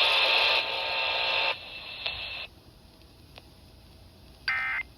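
Radio hiss that steps down and fades out over the first two and a half seconds. Near the end comes a short, buzzy burst of Emergency Alert System digital data tones, the first of the end-of-message bursts that close the alert.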